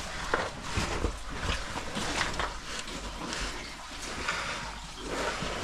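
Irregular scraping and shuffling of a caver crawling through a tight passage, with body and gear rubbing against rock in short uneven scuffs and knocks.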